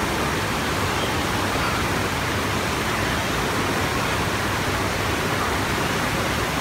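Indoor standing-wave surf machine running: a thin sheet of water pumped fast over the ride surface, making a steady, unbroken rush of water.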